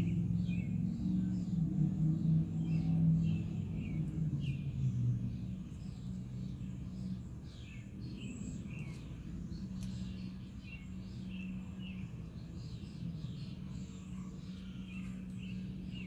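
Small birds chirping in quick, repeated short notes, over a steady low hum that is louder for the first few seconds.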